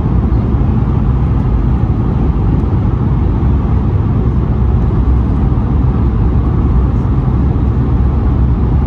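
Steady, low in-flight cabin noise of an Airbus A220-100 on approach: engine and airflow noise from its Pratt & Whitney PW1500G geared turbofans and the slipstream, heard from a window seat over the wing.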